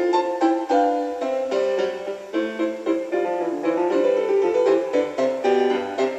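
Classical music led by piano playing from the speaker of an original 1947–53 Chevrolet truck radio converted to AM/FM stereo, tuned to a classical FM station.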